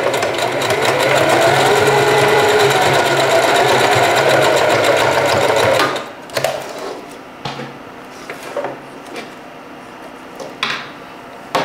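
Singer 4423 Heavy Duty sewing machine stitching at speed, its motor pitch rising and falling, then stopping abruptly about six seconds in. A few light clicks follow as the thread is snipped.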